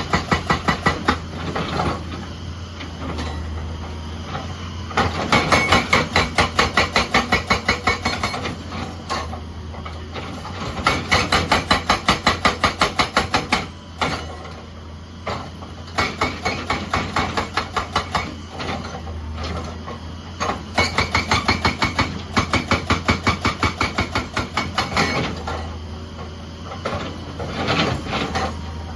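Excavator's hydraulic breaker hammer pounding in rapid bursts of blows lasting a few seconds each, with short pauses between, over the steady low hum of the excavator's diesel engine.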